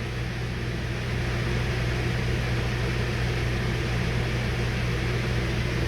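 Steady mechanical hum with a low droning tone under an even hiss, like a fan, air conditioner or idling engine running.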